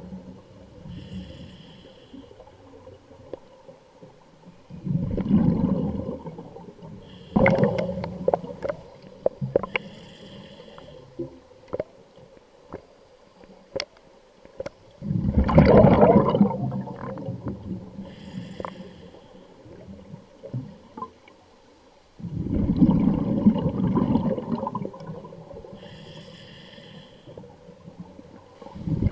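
Scuba diver breathing through a regulator underwater. Each breath is a short hiss of inhalation followed by a loud rush of bubbling exhaust, repeating every several seconds.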